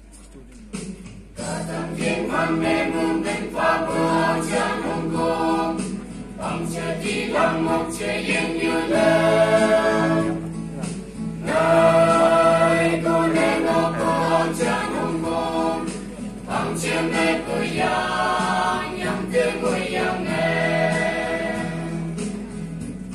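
A mixed choir of young men and women singing an anthem together, starting about a second and a half in after a brief hush.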